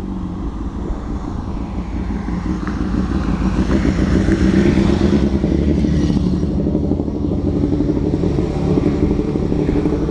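Motorcycle engines running as a group of motorcycles rides by, growing louder to a peak about halfway through and then holding steady.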